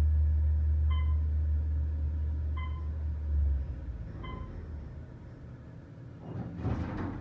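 Otis Series 1 traction elevator's hoist motor humming steadily as the car rises, then fading out about three and a half seconds in as the car slows for its floor. Three short electronic beeps sound about every second and a half as floors pass, and near the end there is a brief rattle as the doors open.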